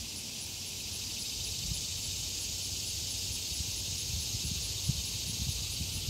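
A chorus of annual (non-periodical) cicadas buzzing in a steady, unbroken high-pitched drone, over a faint low rumble.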